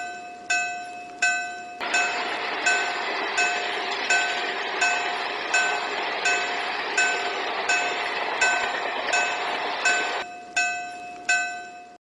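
Japanese railroad crossing warning bell ringing steadily, a little under one and a half strikes a second. A train passes through the crossing from about two seconds in until about ten seconds in, its rushing noise running under the bell; then the bell rings on alone.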